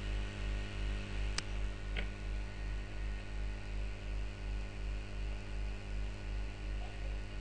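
Steady electrical mains hum from the recording setup, pulsing a couple of times a second, with two faint short clicks about a second and a half and two seconds in.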